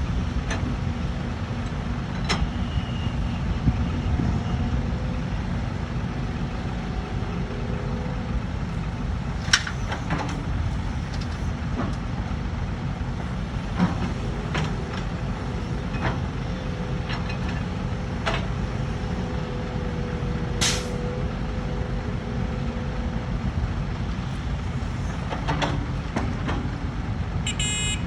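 Heavy diesel machinery, an excavator at work, running steadily with scattered knocks and clanks. There is a short burst of air hiss about 21 seconds in, and a brief rapid series of tones near the end.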